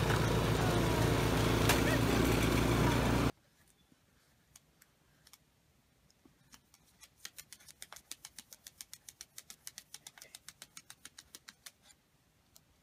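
A gas snowblower's engine running steadily, cut off abruptly about three seconds in. Then, after a short quiet stretch, rapid light clicks, several a second, as a puppy's paws and claws tap on a tablet screen.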